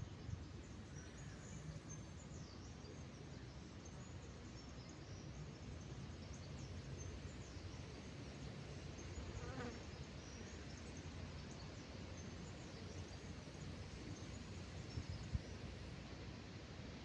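A flying insect buzzes briefly past the microphone about halfway through. Faint, scattered bird chirps and a low steady outdoor rumble sound throughout.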